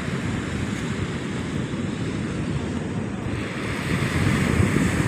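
Sea surf breaking and washing up a sandy beach, with wind buffeting the microphone. The surf grows louder and brighter about four seconds in.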